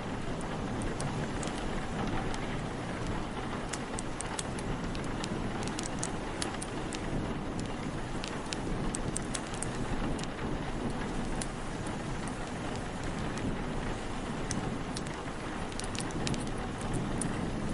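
Steady rain and wind mixed with a crackling wood fire: an even hiss of rain with scattered sharp, irregular crackles and pops throughout.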